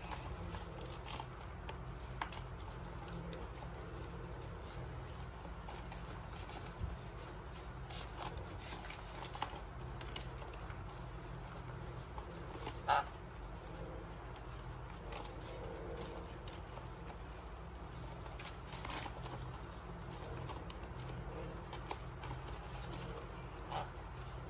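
Sun conures resting in a plastic basket: faint scattered clicks and scratches over a steady low hum, with one brief louder sound about halfway through.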